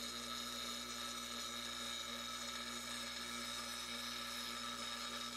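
Central Machinery bench grinder running steadily at speed, its fine wheel grinding the edge of a steel wood-lathe chisel to finish sharpening it.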